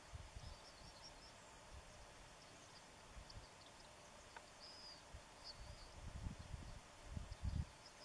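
Faint, scattered short chirps and calls of small songbirds over a steady outdoor hiss, with a few low rumbles in the second half.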